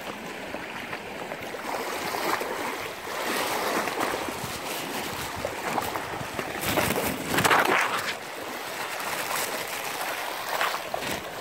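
Small sea waves washing and splashing against a rocky shore, swelling to a louder wash about seven seconds in.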